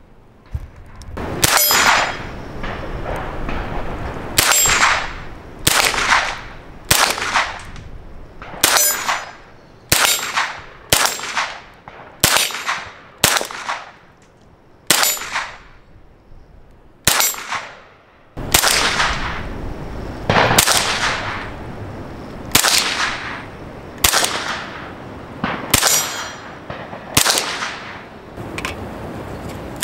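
Suppressed .22 LR CZ Scorpion fired shot after shot at a steel gong, about twenty times in all, with a short pause partway through. Each shot is a muffled crack, and each hit sets the steel gong clanging and ringing away over about a second.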